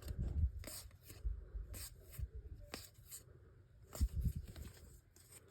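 Baseball trading cards being flipped through by hand, the card stock sliding and rubbing against itself, with a few light ticks as each card is moved to the back of the stack.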